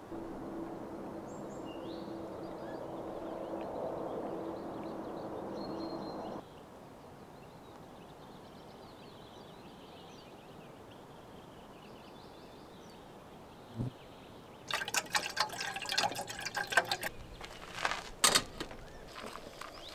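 Small birds chirping over a quiet outdoor background, with a steady low hum that stops abruptly about six seconds in. From about 15 seconds, a run of sharp clicks and clattering as metal camp cooking gear, a stove and kettle, is handled, with another loud clatter near the end.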